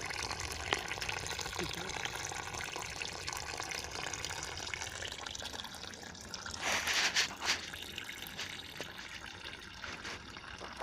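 Water running and trickling, with a brief louder splash about seven seconds in.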